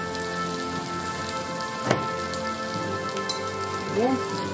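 Rice and egg crackling and sizzling in a hot black pot-bowl on the burner, with one sharp knock about two seconds in and a spatula starting to stir the rice near the end.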